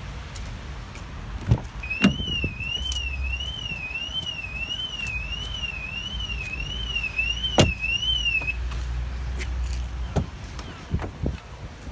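An electronic warbling alarm, a thin high tone sweeping up and down almost twice a second, sounds from about two seconds in for some six seconds. Over it come several knocks and clunks of car-door handling, the loudest about two seconds in and about three-quarters of the way through, with a few lighter knocks near the end.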